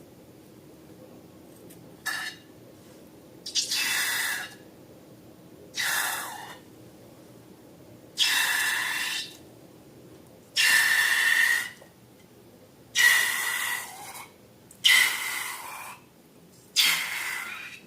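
Air hissing out of a balloon's neck in about eight short bursts, each with a faint squeaky tone, the later ones louder and longer.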